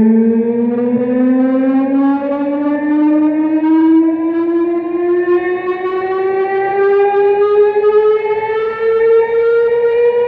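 Civil-defense-style siren winding up, one steady tone rising slowly in pitch.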